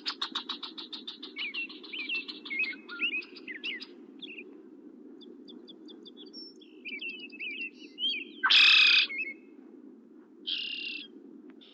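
Small birds calling, red-winged blackbirds and grackles mobbing a red-tailed hawk in flight. A fast chattering series fades out at the start, short chirps and whistles follow, and one loud harsh call comes about eight and a half seconds in. A steady low hum runs underneath.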